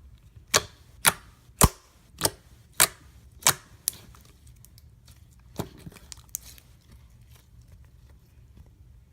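Glossy slime being pressed and poked, popping sharply: about six loud pops roughly half a second apart, then a few softer ones around six seconds in.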